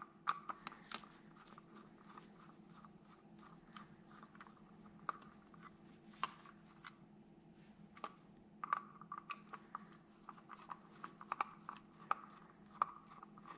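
Hand Phillips screwdriver backing small screws out of the metal bulb-retainer interface plate on an HID projector: a faint run of irregular small metallic clicks and ticks, a few sharper than the rest, over a low steady hum.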